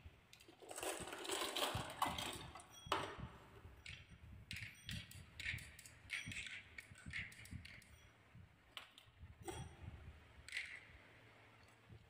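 Glass marbles clicking against one another and rolling on a wooden marble-run track, a series of irregular light knocks with a short rolling rumble near the start.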